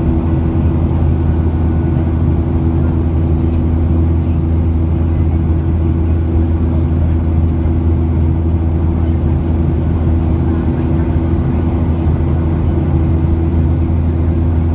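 Airplane engines droning steadily: a constant low hum with a couple of steady tones that holds its level throughout.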